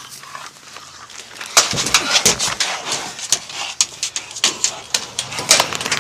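Rapid clattering and knocking from about a second and a half in, as a pit bull held on a catch pole is pushed into an animal-control truck's dog-box compartment: claws, pole and compartment walls banging.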